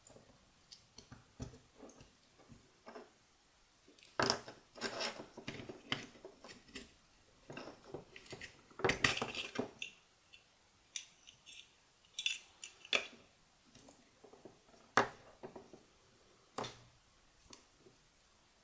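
Metal clicking, clinking and scraping as the steel casing of a dead 9-volt battery is pried apart to free its snap connector, in irregular bursts with the busiest stretches about four to six seconds in and around nine seconds in.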